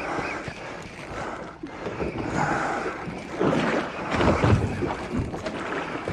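Wind buffeting the microphone and sea water washing around a small boat's hull, with a louder rough stretch of noise about three and a half seconds in that lasts over a second.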